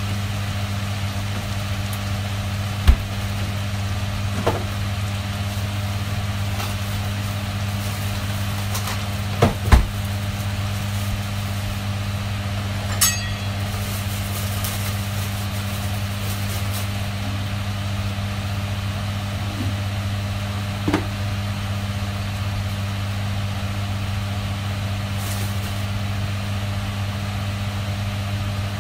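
Chicken sisig sizzling steadily in a frying pan over a constant low hum, with a few light knocks here and there, the loudest pair about ten seconds in.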